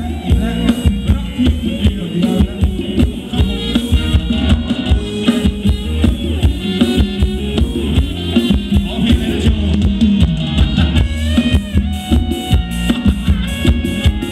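Live band playing Thai ramwong dance music, loud, with a steady drum-kit beat and heavy bass.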